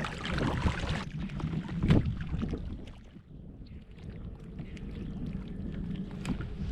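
Wind rumbling on the microphone over water sounds around a kayak on a lake, with a few swishes in the first couple of seconds. It drops quieter about three seconds in, then rises again.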